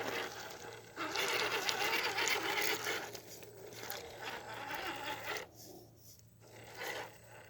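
Small electric motor and gear drivetrain of an RC rock crawler whirring as it crawls over rock, with tires and chassis scraping; loudest from about a second in until about five and a half seconds, then quieter.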